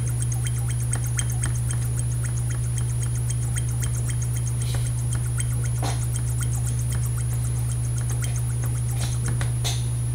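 Fine, rapid scratching and ticking of a small metal embossing tool worked along a harmonica reed slot, with a few sharper clicks, over a steady low hum.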